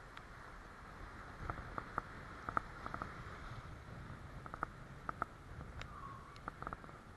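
Steady low rumble of surf and wind with clusters of short sharp knocks and splashes, as an inflatable kayak is paddled out through the waves.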